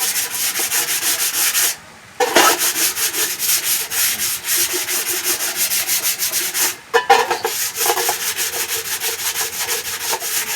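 Sandpaper rubbed by hand over an old electric fan's parts: quick back-and-forth strokes, about four to five a second, with a short pause about two seconds in.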